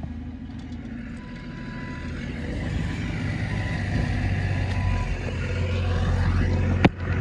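A vehicle engine idling, a steady low hum that grows slowly louder, with one sharp click near the end.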